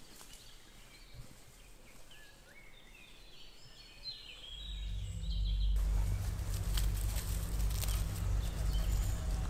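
Faint birdsong chirping in a wood. About four and a half seconds in, a low steady rumble swells up. A second later a dense crackling rustle of dry leaves joins it, as a hand presses and scrapes on the leaf-littered forest floor, and the rustle stays the loudest sound.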